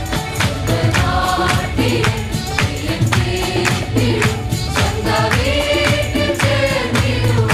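Choir of women singing a Christian hymn into microphones, over a steady beat of sharp percussion strikes, about three a second.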